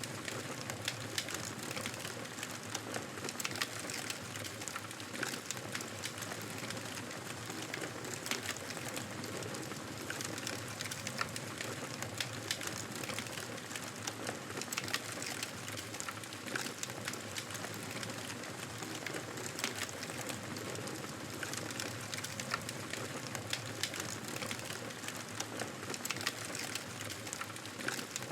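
Campfire wood burning and crackling, a steady stream of small snaps and pops over a soft hiss.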